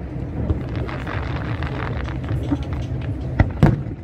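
Fireworks exploding, with two sharp booms close together near the end over a steady din.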